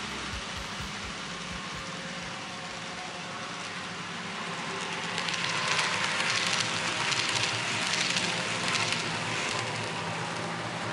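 N-gauge model trains running past on the layout: a steady rattle of small wheels rolling on the track, with a few low clicks at the start. It grows louder for a few seconds in the middle as the next train comes through.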